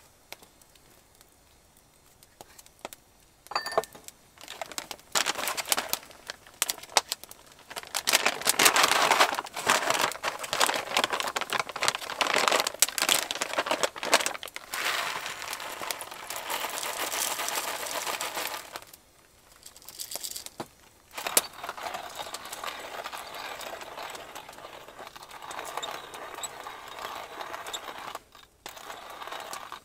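Stainless steel hand-crank coffee grinder grinding coffee beans: a dense gritty crunching that begins about five seconds in after a few light clicks. It breaks off briefly a little past halfway, then goes on more evenly.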